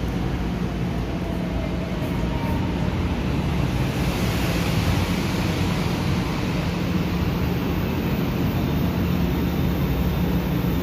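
A São Paulo Metro train standing at the platform with its doors open, its onboard equipment giving a steady low hum under an even rushing noise.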